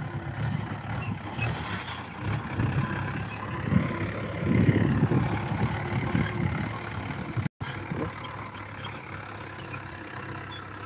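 Mahindra 475 DI tractor's diesel engine running steadily as it pulls a harrow through the soil, growing louder around the middle as the tractor passes close by.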